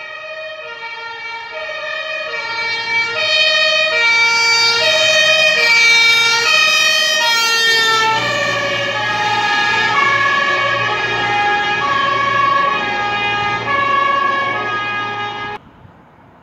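German fire truck's two-tone sirens, a city horn and a compressed-air horn sounding together, approaching and passing about eight seconds in, their pitch dropping as the truck goes by, over the truck's engine. The sound cuts off abruptly near the end.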